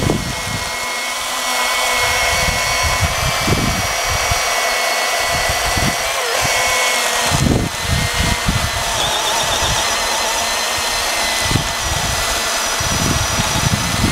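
Battery-powered electric chainsaw running steadily through a log, a continuous motor and chain whine with several steady tones and no engine note, fed gently rather than forced into the cut.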